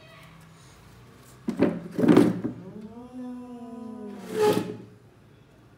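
Cats in a standoff: a loud noisy burst about one and a half seconds in, then a long yowl from a cat that rises and falls in pitch, cut off by a sharp hiss near the end.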